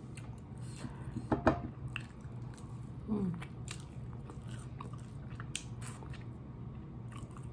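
Close-up mouth sounds of a person eating sauce-covered chicken wings: biting, chewing and wet smacking, with scattered short clicks.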